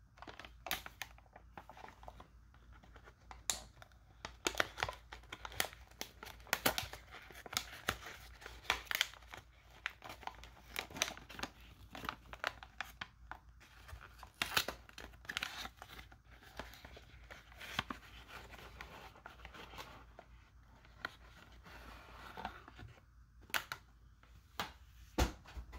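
Cardboard trading-card box being torn and worked open by hand: irregular tearing and crinkling with many short, sharp crackles, stopping and starting.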